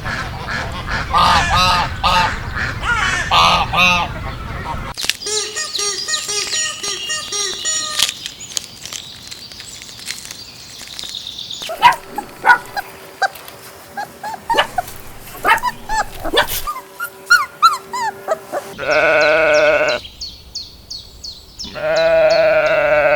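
A string of farm animal calls in separate segments, with short chirping calls in the middle and two loud, long bleats near the end.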